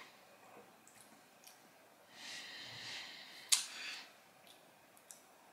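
A person's soft breath lasting about a second, then a sharp mouth click followed by a shorter breath, with a few faint ticks.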